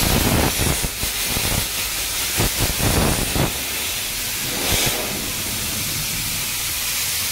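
Compressed-air spray gun hissing steadily as it sprays glue onto rebonded foam, with several louder gusts in the first few seconds and one more about five seconds in.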